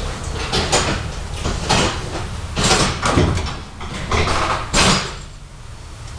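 Inside a moving KTM-19 tram car: a steady low running hum with a series of about six loud clattering knocks and rattles as the car rides over the track, easing off near the end.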